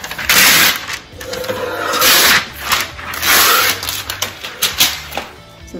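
Release paper being peeled off the adhesive back of a peel-and-stick shiplap wall plank, in three loud, noisy pulls a little over a second apart, then a few handling clicks.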